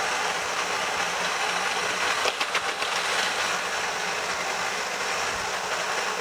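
Electric mixer running steadily, its beaters mixing cream cheese into whipped heavy cream. A brief rattle of clicks a little over two seconds in.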